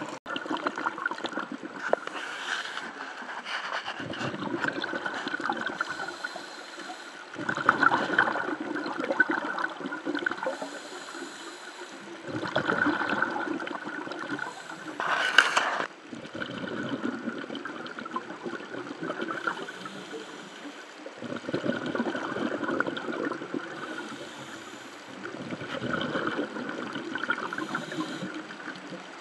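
Underwater recording of a scuba diver breathing through a regulator: bubbly, gurgling surges of exhaled air come back every four to five seconds, with a short, sharper burst about halfway through.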